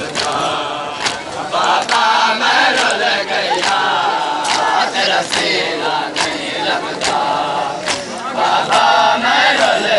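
Crowd of men chanting a Muharram noha together, with sharp hand slaps of matam chest-beating keeping the beat about once a second.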